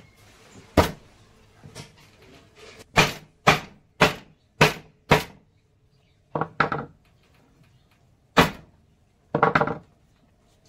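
Sharp knocks on wood: a single knock about a second in, then five evenly spaced strikes about half a second apart, then three more irregular ones, two of them with a short rattle.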